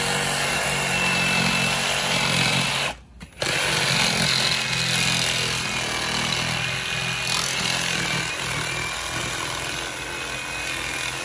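Power saw cutting a length of PVC sewer pipe to size: a loud, steady motor whine that stops briefly about three seconds in, then runs again before cutting off just after the end.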